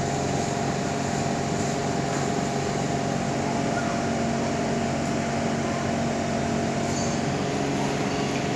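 Steady interior noise of a Kawasaki C151 train carriage: an even rush with a hum and several held tones.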